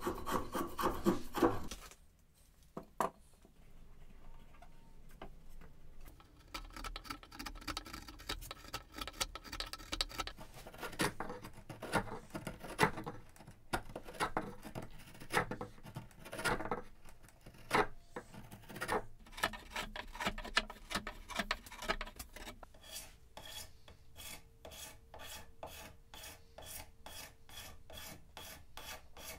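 Hand tools cutting an oak mallet handle: uneven, scraping strokes of a spokeshave shaving the wood, then a run of quick, even file strokes, about three a second, over the last several seconds.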